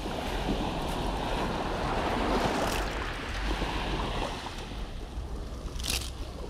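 Sea waves washing on a rocky shore, one surge swelling about two seconds in, with wind on the microphone. A couple of brief clicks come near the middle and near the end.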